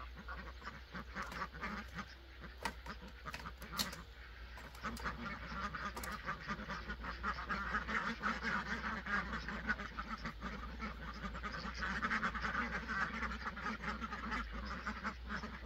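A flock of domestic ducks quacking continuously in a dense chatter, growing louder past the middle and again near the end. A few sharp clicks sound in the first several seconds.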